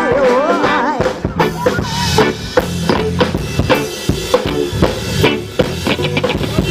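Live band playing: an electric guitar lead with bent, wavering notes fades out about a second in, and the drum kit carries on with a steady kick-and-snare beat under bass and guitar.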